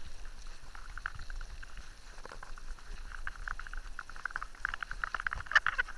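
Mountain bike rolling over a rough gravel and dirt track: a dense, irregular clatter of small rattles and crunches from the bike and its tyres, heaviest a little after five seconds in, over a low rumble.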